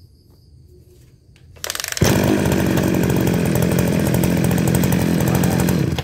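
Kawasaki TJ27 27 cc two-stroke brush cutter engine pull-started. It catches about two seconds in, runs loud and steady, and cuts off suddenly at the end.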